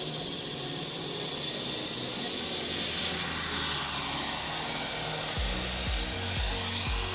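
RC helicopter spooling up and lifting off, a high whine rising gently in pitch. Background music comes in with a steady beat about five seconds in.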